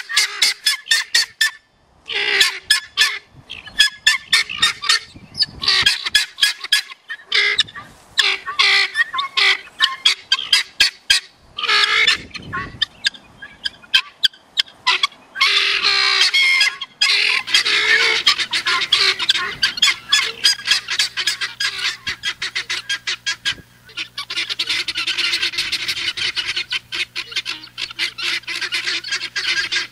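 Several male helmeted guinea fowl calling together: a loud, harsh, fast chattering of short repeated notes in bouts with brief breaks, running almost without pause over the second half.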